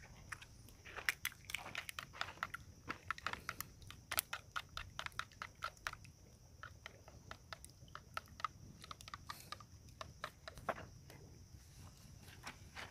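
Metal spoon beating raw eggs in a plastic bowl: quick, irregular clicks and taps of the spoon against the bowl, several a second.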